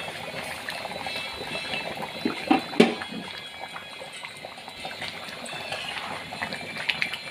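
Duck rendang gravy with coconut milk boiling hard in a wok, a steady bubbling with many small pops. This is the simmer that softens the duck meat. A few sharper clicks come between two and three seconds in.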